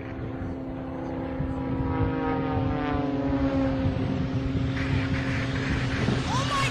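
Radio-controlled model airplane's motor and propeller droning as it flies with one wing missing. The pitch falls over a couple of seconds midway, then holds steady.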